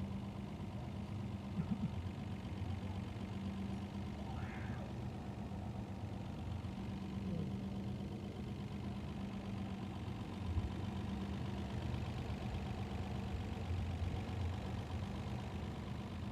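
An engine idling steadily, an even low hum that holds constant throughout.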